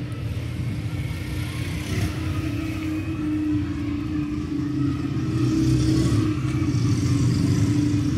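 A steady machine hum, like an engine running, that grows louder about five seconds in.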